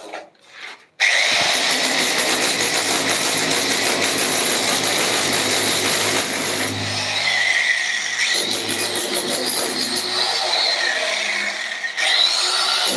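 A power tool starts about a second in and runs steadily, with a whine that wavers in pitch over a dense noise.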